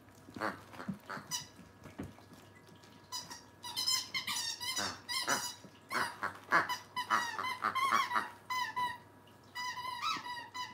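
Squeaker in a plush dog toy being squeezed again and again, giving short high squeaks. The squeaks are sparse at first, then come in quick runs from about a third of the way in.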